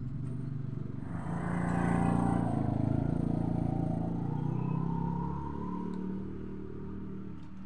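A motorcycle engine passing by on the road: it swells over about two seconds, then fades away.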